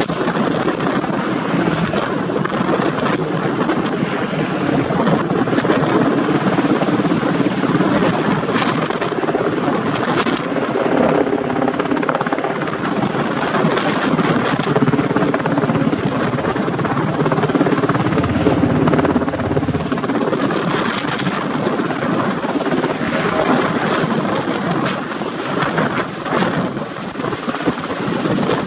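Black Hawk helicopter, a twin-turbine machine, hovering with steady, loud rotor and turbine noise as it lifts a steel chairlift tower section on a long line.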